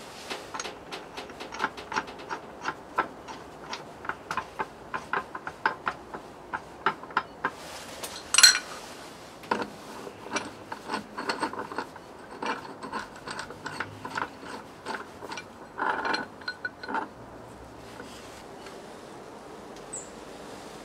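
Hand tools at work on a motorcycle engine: a long series of short ratchet-like clicks and light metal taps, a few each second, with one loud metallic clank about eight seconds in.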